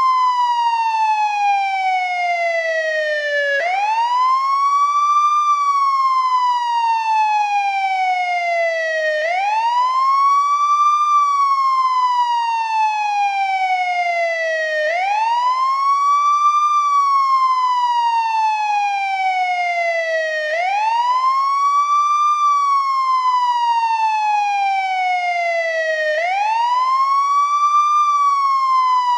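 American ambulance wail siren, old-style, sounding continuously. Its pitch rises quickly to a peak, then slides slowly down over about four seconds, and the cycle repeats about five times.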